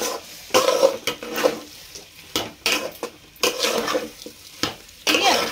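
Metal spatula scraping and stirring rice, dal and spices as they fry in an aluminium pot, in short strokes about once a second.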